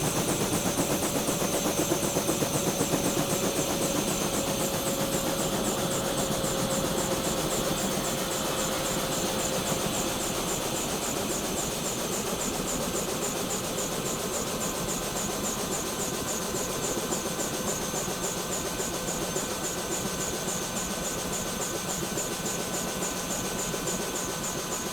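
Bell 212 twin-turbine helicopter heard from inside the cabin, turbines and rotor running steadily. A whine falls slightly in pitch over the first ten seconds, and the level eases off near the end.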